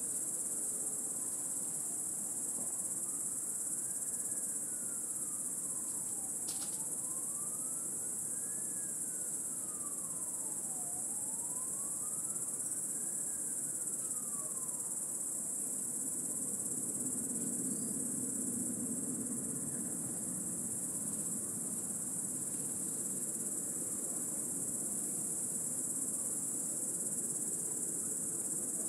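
Cicadas calling in a dense chorus, one steady, unbroken high-pitched buzz. A faint siren wails slowly up and down in the background through the first half.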